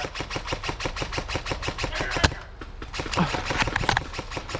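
Airsoft gun firing on full auto: a steady rapid stream of sharp shots, about eight a second, with one louder crack a little over two seconds in.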